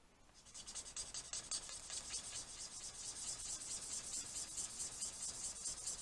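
Alcohol marker nib scribbled quickly back and forth on scrap paper, a steady scratchy rasp of rapid strokes that starts just after the beginning. The scribbling cleans colored-pencil pigment off the marker tip, which would otherwise stain the marker.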